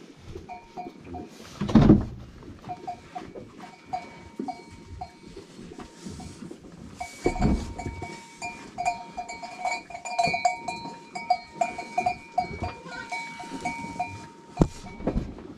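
Goat herd with small neck bells clinking over and over in an uneven patter, with two louder bursts about two seconds in and again about seven and a half seconds in.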